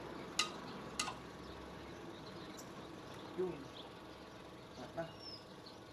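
A metal tool tapping against a starter motor's field coils and steel housing: two sharp clicks in the first second, then a fainter tap later, over a low background hiss. A brief high chirp comes near the end.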